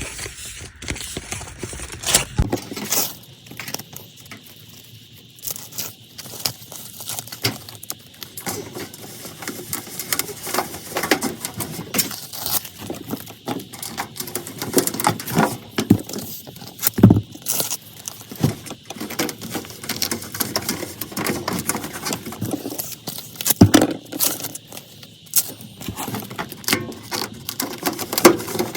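Tape being applied around the sheet-metal furnace base to seal it: irregular crackling and rustling of the tape as it is unrolled, torn and pressed down, with a few louder knocks on the metal, one about two seconds in and two more past the middle.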